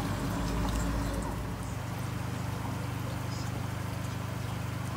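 Steady low machine hum, with a deeper rumble that fades out about a second and a half in.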